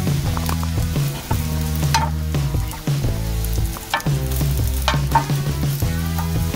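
Chicken of the woods mushroom slices sizzling in a frying pan while being stirred with wooden chopsticks, with a few sharp clicks of the chopsticks against the pan. Background music with a low bass line runs underneath.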